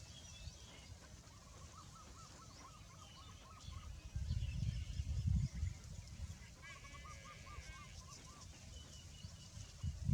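Birds calling: two quick runs of rapidly repeated notes and scattered higher chirps, over low rumbling noise like wind that swells briefly near the middle.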